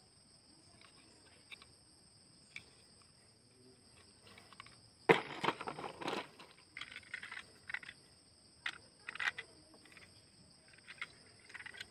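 Plastic toy train locomotive and coaches clicking and clattering against their plastic packing tray as they are handled and set in place, starting about five seconds in with one sharp click, then scattered knocks and rustles. A steady high buzz of insects runs underneath.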